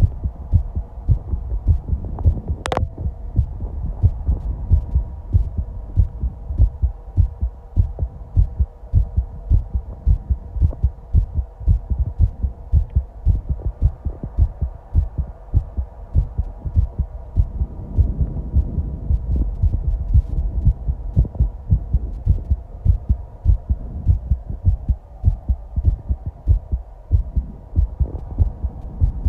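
Human heartbeat picked up close against the body: a steady, regular rhythm of low thumps. There is a sharp click about three seconds in.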